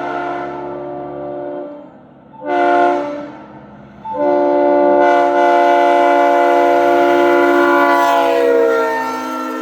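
Multi-chime locomotive air horn sounding a chord: a blast that dies away, a short toot about two and a half seconds in, then a long loud blast from about four seconds. Near the end of the long blast some of its notes sag in pitch and it carries on more softly.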